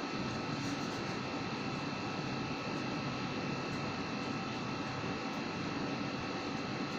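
Steady background room noise: an even hiss and low hum with a few faint, constant high tones, and no distinct events.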